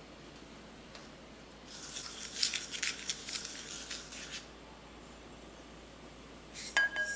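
Wooden spoon scraping and stirring granulated sugar in a small ceramic cup: a gritty, crackly rustle lasting about two and a half seconds. Near the end come a few sharp clicks and a short ring, ceramic knocking on ceramic.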